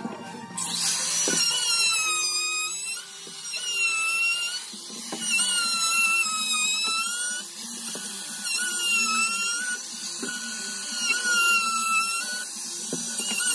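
Small quarter-inch router running at high speed while cutting, a high whine whose pitch dips and recovers again and again as the bit bites into the wood and the motor slows under load.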